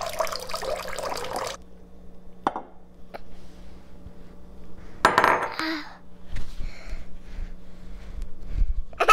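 Beef broth poured from a glass measuring cup into a slow cooker full of diced vegetables, splashing for about a second and a half and then stopping. A few light knocks follow later.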